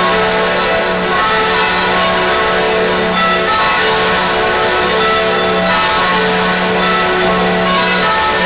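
Church bells ringing, several bells sounding at once, their tones overlapping and hanging on, with new strokes about every second.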